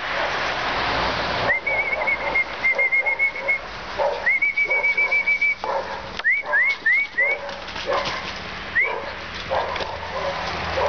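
High whistling: two rapid trills of short even notes, then four quick rising whistles and one more a little later, with dogs barking in the background.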